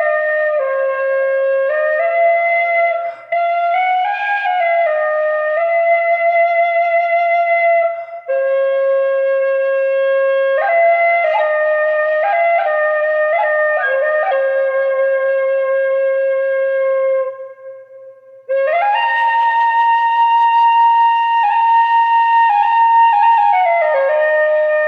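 A solo Irish flute plays a slow, ornamented melody. There are short breaks for breath about three and eight seconds in and a longer one near eighteen seconds, with a run of quick grace notes around twelve seconds.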